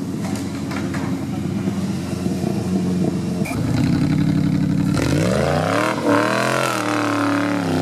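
Off-road buggy engine running steadily, then revved hard from about five seconds in, its pitch rising and falling several times as the buggy climbs a muddy gully and tips onto its side.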